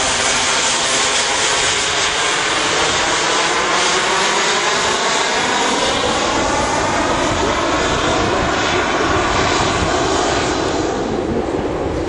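Engine of a radio-controlled Eurofighter jet model flying overhead, a loud, steady jet rush whose pitch slowly shifts as the model moves around, dipping briefly near the end.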